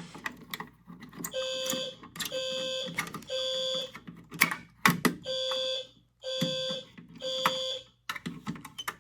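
Fire alarm horn on the panel's notification circuit sounding the temporal-three evacuation pattern: three half-second blasts about a second apart, a pause, then three more, signalling an active alarm from the pulled station. Sharp clicks and knocks fall in the gaps between the groups.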